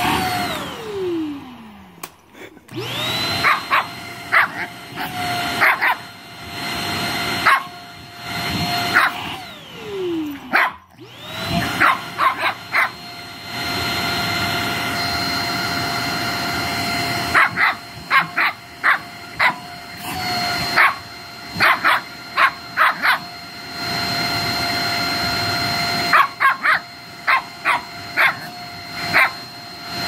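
Shih Tzu puppy barking and yipping in short clusters at a running vacuum cleaner's nozzle. The vacuum's steady motor whine winds down and starts up again twice, about a second in and about ten seconds in.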